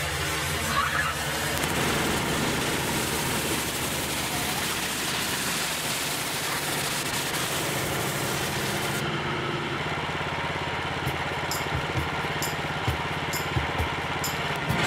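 Pressure washer running, its spray hissing against the wet bark of a log. About nine seconds in the spray hiss stops while the machine keeps running, followed by a few light clicks.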